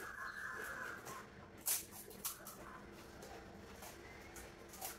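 Faint crisp snaps of hollow puri shells being cracked and bitten, a few separate cracks with the loudest about a second and a half in. A harsh rasping sound swells and fades in the first second.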